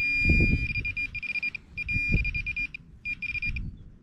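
Minelab Pro-Find 20 pin-pointer sounding its high, steady buzzer tone in three stretches, cutting out and back in as it is moved over the target in the dug soil: the tone means the target is right at its tip. Rough low bumps and handling noise run underneath.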